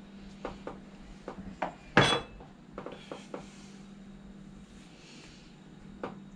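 Spoon clinking against a glass seasoning jar and kitchenware, with a handful of light knocks and one louder, briefly ringing clack about two seconds in, as Bajan seasoning is spooned onto fish in a stainless steel bowl. A faint steady hum runs underneath.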